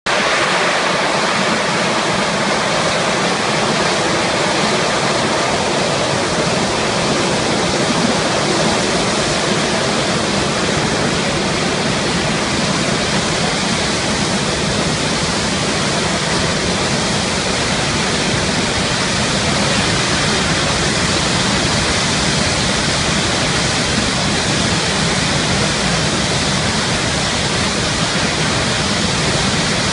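Water rushing in a loud, steady, unbroken torrent, as from a large water-transfer tunnel releasing its first flow.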